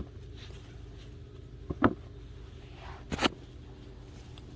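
Three short knocks and scrapes from digging potatoes out of garden soil, over a steady low hum.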